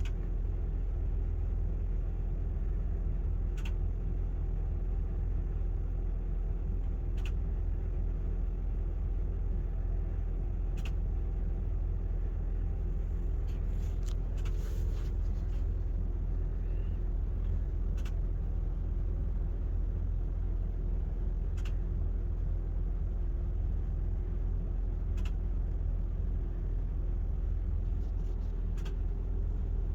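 Propane-fuelled RV generator running steadily with a constant low hum, during the few-minute wait before its power kicks on. A faint tick sounds about every three and a half seconds.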